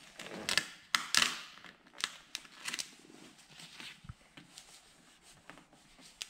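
Black tint vinyl film being smoothed onto a car's tail light by hand and with a plastic squeegee: irregular rubbing, scraping and crinkling of the film, loudest about a second in.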